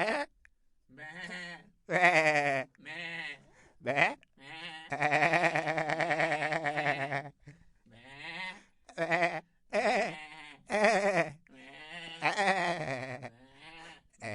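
Goats bleating: a quick run of short, quavering calls, with one long drawn-out bleat in the middle.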